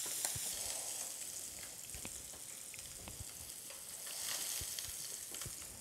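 Scallops sizzling as they sear in hot oil in a stainless steel skillet, with faint clicks of metal tongs as they are lifted out of the pan.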